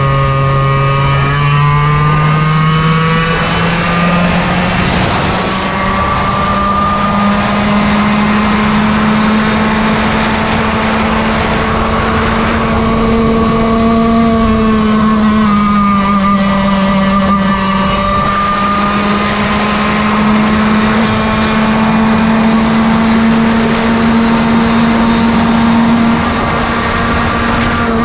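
Yamaha KT100 single-cylinder two-stroke kart engine running at racing revs. Its pitch climbs over the first several seconds, then rises and falls gently as the throttle is worked.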